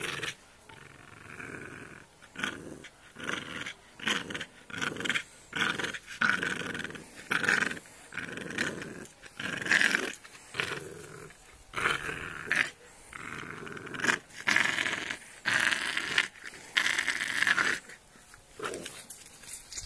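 Young pit bull puppy growling in short, repeated bursts, about one a second.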